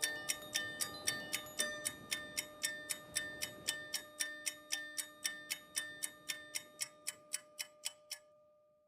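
Clock-like ticking, about four evenly spaced ticks a second, over a held ringing tone. It fades out steadily, and the ticks stop about eight seconds in.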